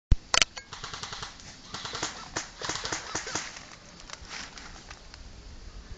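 A string of irregular sharp clicks and knocks, two loud ones right at the start, then softer ones every fraction of a second.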